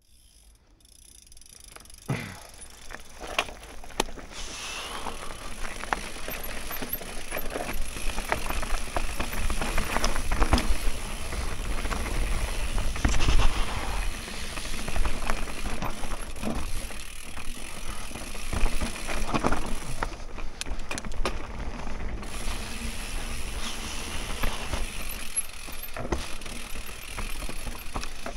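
Mountain bike ridden down a dirt trail: tyres on dirt with rattles, clicks and knocks from the bike over bumps, fading in over the first few seconds.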